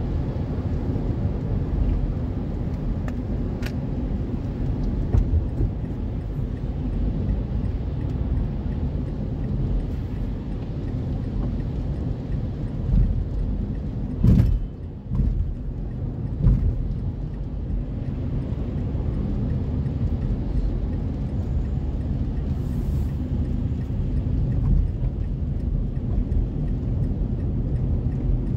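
Car driving on a wet highway, heard from inside the cabin: a steady low rumble of tyre and road noise with the engine beneath it, and one sharp thump about halfway through.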